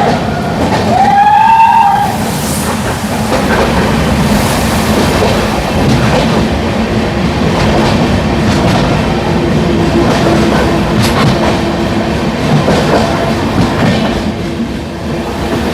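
Passenger train running along the track, its wheels clattering steadily over the rails, heard from aboard the train.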